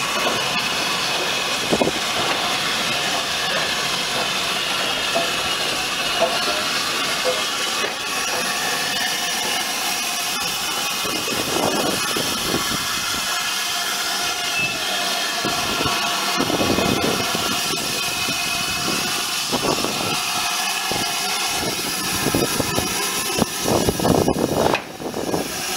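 Steam hissing steadily from BR Standard Class 5 steam locomotive 73156, with some uneven louder sounds near the end.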